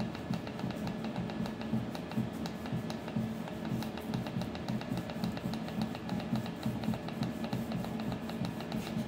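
Background music with a steady, fast drum beat.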